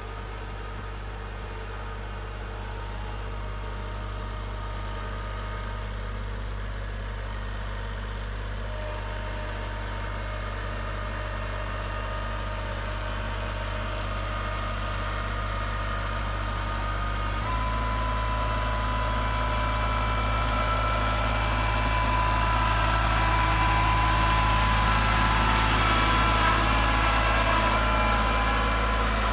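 Kubota compact tractor's diesel engine running under load as the front-loader bucket pushes deep snow. It grows steadily louder as the tractor comes closer, and about halfway through the engine note steps up and a steady whine joins it.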